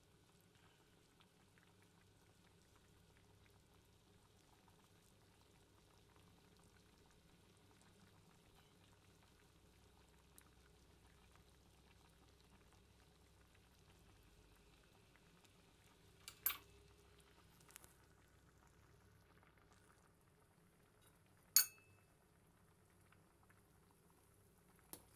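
Coconut-curry laksa broth boiling faintly in a metal pot, a soft steady bubbling. Two sharp clicks stand out in the second half, about five seconds apart.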